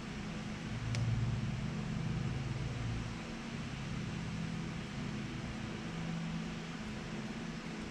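Steady hum and hiss of a running electric shop fan, with a faint tick about a second in.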